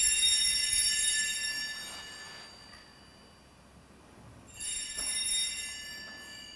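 Altar bells rung at the elevation of the consecrated host during the Mass. A ring already sounding fades away over the first two seconds or so, then the bells ring again about four and a half seconds in and fade.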